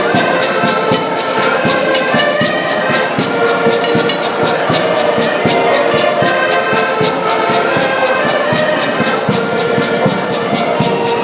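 Live band music: wind instruments playing a melody over a fast, steady drumbeat.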